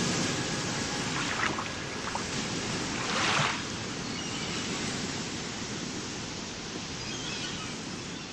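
A steady rushing, surf-like noise with one brief swell about three seconds in, gradually fading toward the end.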